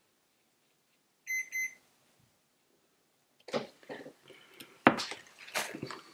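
Two short electronic beeps about a second in. From about three and a half seconds, irregular clicks and scrubbing of a paintbrush working paint in a watercolour palette.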